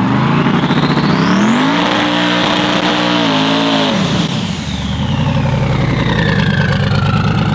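Turbocharged pickup truck accelerating hard with its rear tyres spinning, on about 6 pounds of boost at roughly a third throttle. The revs climb for about two seconds with a rising turbo whistle and hold, then drop about four seconds in. The engine then runs on at a lower steady pitch while a whistle falls away.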